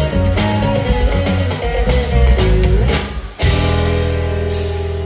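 Background rock music with guitar and drums. A little over three seconds in it drops out briefly, then a long held chord rings with cymbals.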